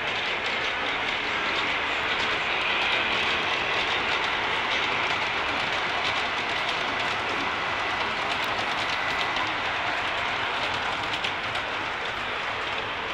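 Model freight train running steadily past on the layout track, its wheels rolling and clicking over the rail joints.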